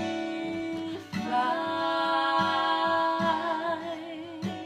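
A singer holds one long note on the word 'fly' over strummed acoustic guitar. The note wavers toward the end.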